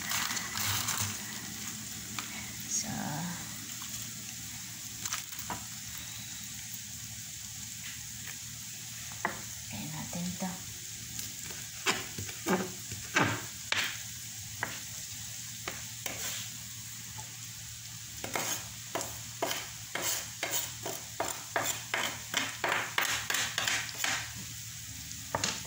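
Large kitchen knife shredding cabbage on a plastic cutting board, each stroke a crisp cut and tap on the board. The cuts come scattered at first, then from about two-thirds of the way in as a quick, even run of about two to three strokes a second, over a steady hiss.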